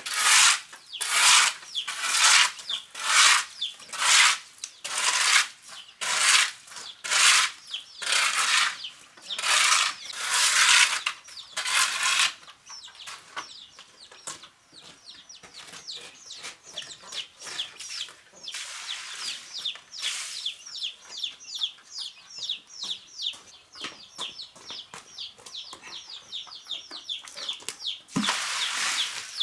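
Rhythmic swishing or scraping strokes about once a second for the first twelve seconds, then chicks peeping rapidly in short, falling high chirps, with another brief swish near the end.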